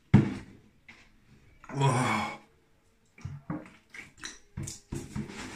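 A man groaning and breathing hard through a mouth burning from Carolina Reaper chilli, with one drawn-out groaning exhale about two seconds in and a run of short, ragged breaths after it. A sharp knock sounds just after the start.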